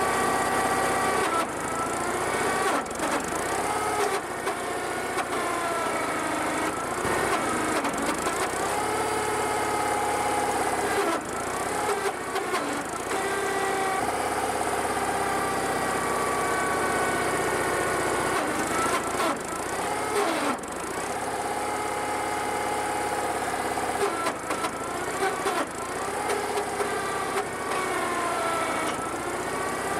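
Engine powering a hydraulic wood splitter, running steadily, its pitch sagging and recovering several times as the hydraulics take and release load. There are a few short knocks.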